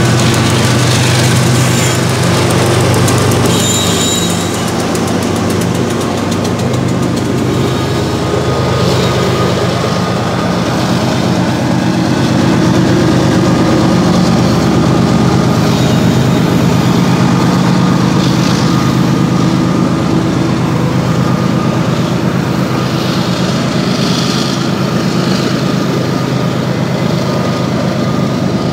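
Diesel locomotive engine at the rear of a BNSF coal train, running with a steady low drone as it passes the crossing and pulls away. Road cars drive over the crossing in the second half.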